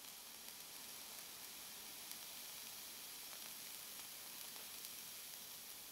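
Faint steady hiss, little more than room tone, with a couple of very faint ticks.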